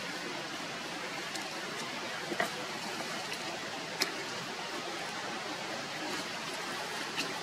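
Steady background hiss with a few faint sharp clicks, two of them about two and a half and four seconds in and another near the end.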